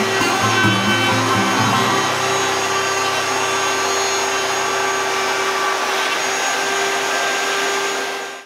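Table-mounted router running with a steady high whine while a board is fed past the bit along the fence. It fades out quickly at the very end.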